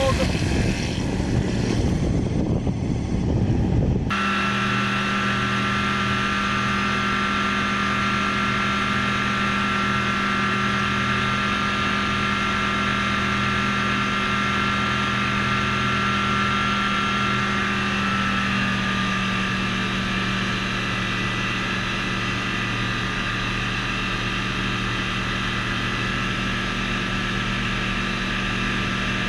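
Rotax 912iS Sport four-cylinder engine and propeller of an F6 Hydran seaplane. For the first few seconds it is heard from outside as the hull planes across the water, with the rush of spray. Then comes a steady engine and propeller drone inside the cockpit in flight, with a slight change in pitch about 18 seconds in.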